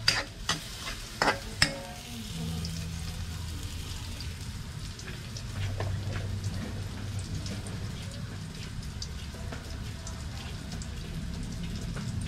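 Turmeric, garlic and onion sautéing in oil in a frying pan, a steady sizzle with faint crackles. A few sharp knocks come in the first two seconds.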